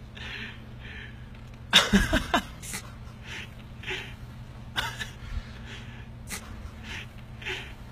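Heavy pickup truck's engine running as a low steady hum. Short breathy huffs from a person recur about once a second, with a louder voice-like outburst about two seconds in.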